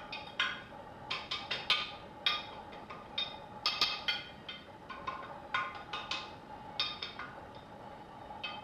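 A glass baking dish being handled, giving a run of irregular light taps and knocks, each with a brief ringing tone, as it is greased and tilted over the counter.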